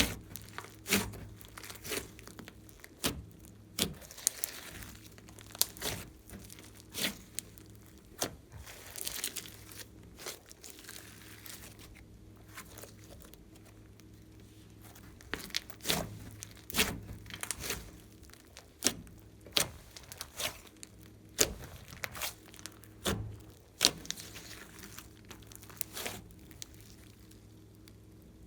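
Glossy slime being squished and stretched by hand, giving sticky clicking and popping sounds at irregular intervals, with a few softer crackling stretches between them.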